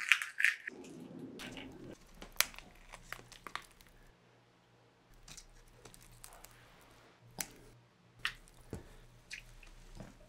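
Hard-boiled eggshell crackling as it is peeled away by hand, then a few separate sharp taps as cooked egg yolks are dropped into a glass bowl.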